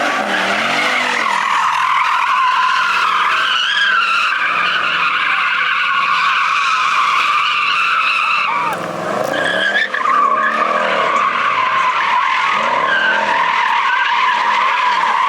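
Car tyres squealing continuously as the car spins donuts, with the engine revving up and down in surges near the start, around the middle and a little after. The car is all-wheel drive, made rear-wheel drive by a pulled fuse.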